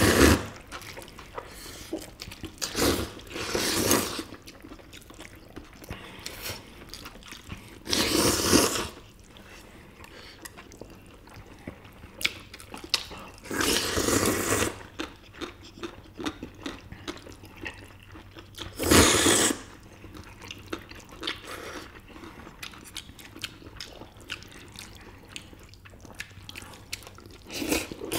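People slurping spicy bibim noodles in loud, wet bursts of about a second, some six times, with quieter wet chewing in between.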